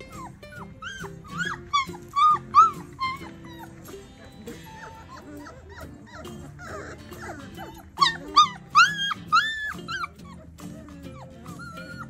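Four-week-old standard Bernedoodle puppies yipping and whining in short, high-pitched calls, in one burst about two seconds in and another about eight seconds in, with music underneath.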